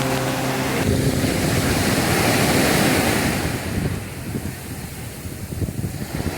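Surf breaking and washing on a beach, with wind on the microphone; a wave swells about two to three seconds in, then the wash falls quieter.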